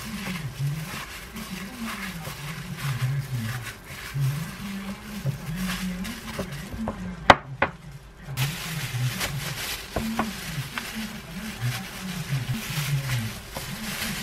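Plastic-gloved hands mashing and mixing konjac brown rice with crumbled tofu in a glass bowl, a soft squishing with crinkling of the gloves. There are two sharp clicks a little past halfway, then wet leaves of aged kimchi are spread on a wooden board. A low wavering hum runs underneath.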